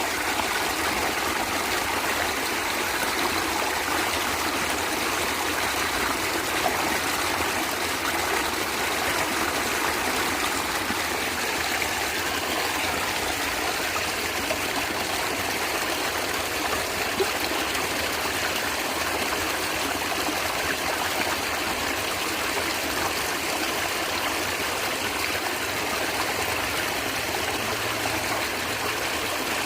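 Natural stream of water flowing and gurgling steadily, an even rushing babble with no pauses.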